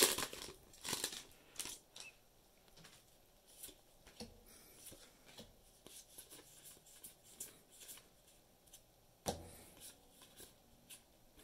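Magic: The Gathering cards being handled and slid one behind another while flipping through a freshly opened booster pack: soft flicks and ticks, with one louder snap about nine seconds in. A crinkle of the foil pack wrapper comes at the very start.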